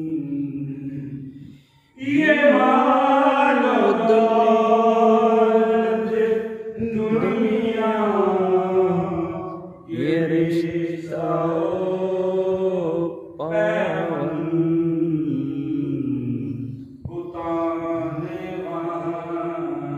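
A voice chanting a devotional Islamic litany (zikr) in long, drawn-out melodic phrases a few seconds each, with short breaks for breath between them.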